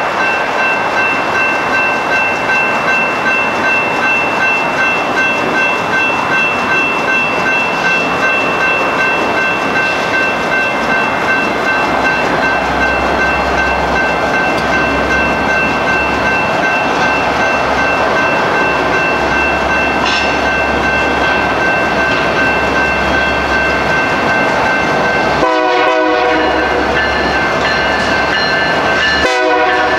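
A General Signals Type 2 electronic crossing bell rings steadily at a railroad crossing, while a freight train's noise carries underneath. Near the end a diesel locomotive's horn sounds two short blasts.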